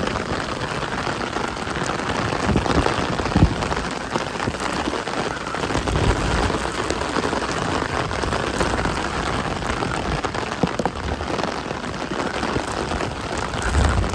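Steady rain pattering, with a few brief low thumps around the middle and near the end.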